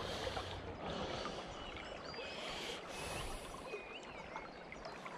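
River water flowing steadily around a wading angler, with small birds giving short, quick chirps from about two seconds in.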